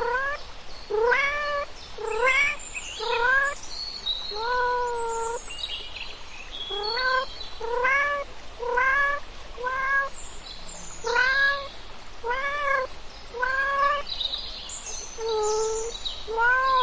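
A cat meowing over and over, short rising-and-falling meows about once a second, with fainter high chirps between them.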